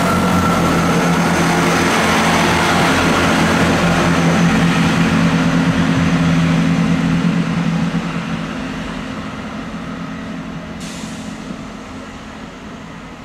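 GWR Class 165 Turbo diesel multiple unit passing at speed, its diesel engines running with a steady low note plus wheel and rail noise. It fades from about eight seconds in as the train draws away, with a short hiss near the end.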